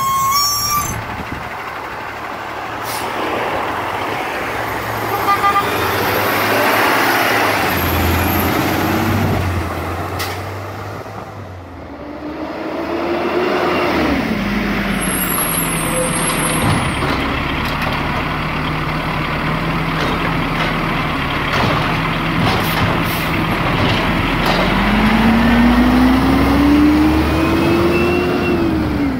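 Garbage truck engines running and revving, the pitch rising and falling about 13 seconds in and climbing again over the last few seconds, with short hisses of air. The sound changes abruptly about 12 seconds in.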